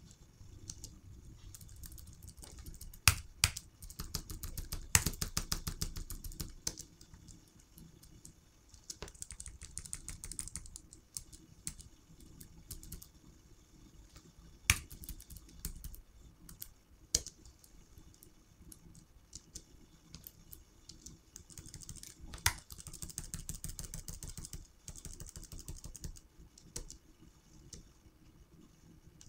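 Computer keyboard keys being pressed to navigate a drone flight controller's on-screen display: scattered single key taps and two runs of rapid presses.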